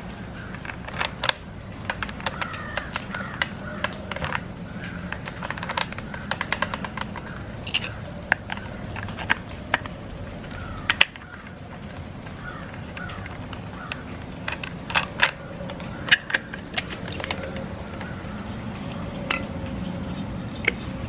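Scattered light metallic clicks and clinks at irregular intervals as tools and small metal parts are handled; the angle grinder is not running.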